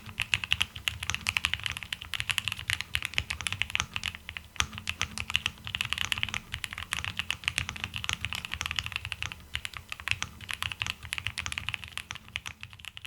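Fast, continuous typing on a ZUOYA LMK67 mechanical keyboard fitted with Gateron Oil King linear switches: a dense stream of key clacks, each with a low thud under the sharper click.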